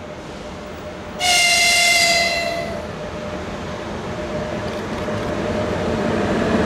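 A train horn sounds one blast about a second and a half long, over the steady rumble of a train on the rails that grows louder toward the end.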